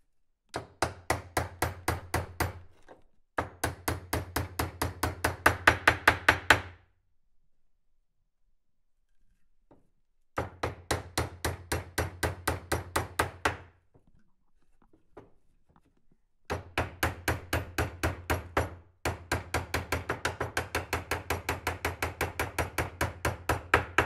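Rapid hammering, about seven sharp strikes a second, in several bursts of two to four seconds with short pauses between them.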